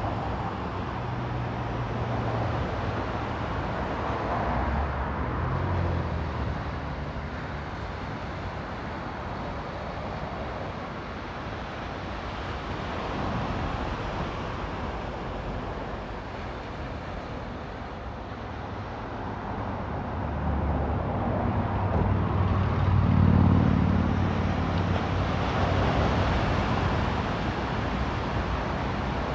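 Road traffic: vehicles passing one after another, each rising and fading over a continuous wash of noise, the loudest pass coming about three-quarters of the way through.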